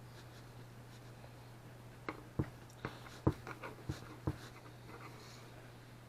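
A knife knocking and tapping on a cutting board as a rolled log of cinnamon roll dough is cut: about eight light, sharp knocks packed into a couple of seconds, starting about two seconds in, over a steady low hum.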